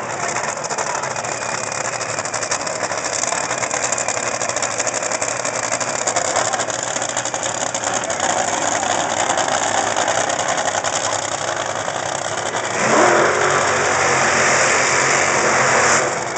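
Supercharged nitromethane Top Fuel dragster engines running during burnouts at the starting line. A louder stretch lasts about three seconds near the end.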